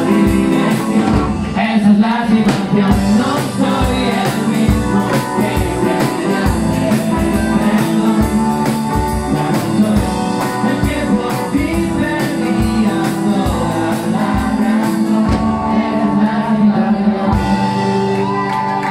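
Live rock band playing a song with a steady drum-kit beat, electric guitars, trumpet and keyboard, and a lead singer.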